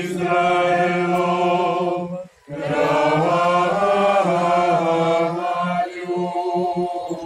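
Congregation singing a liturgical hymn in unison: slow phrases of long held notes, with a short breath pause about two and a half seconds in.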